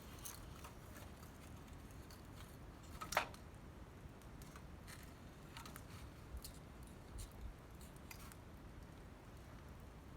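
Wood fire crackling softly with scattered small pops, and one louder sharp pop about three seconds in.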